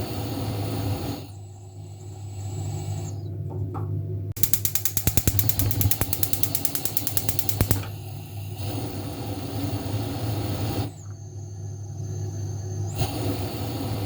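Stove or oven controls: a steady low hum, broken from about four seconds in by a fast run of ratcheting clicks, around ten a second, that lasts about three seconds.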